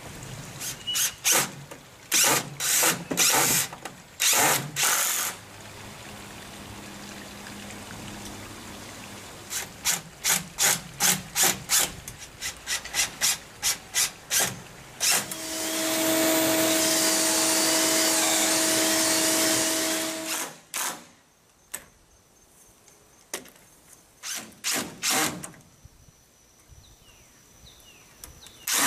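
Cordless drill driving screws into wooden framing boards in many short bursts, with one longer steady run of about five seconds about halfway through.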